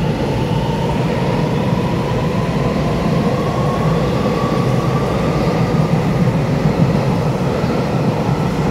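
Taiwan Railway EMU3000 electric multiple unit departing, its wheels rumbling and its traction motors whining in a single tone that rises slowly in pitch as the train accelerates out of an underground station.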